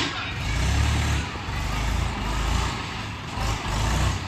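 Heavy diesel engines of a JCB 3DX backhoe loader and tractors running at a worksite, the low rumble swelling louder in about three surges as the machines work.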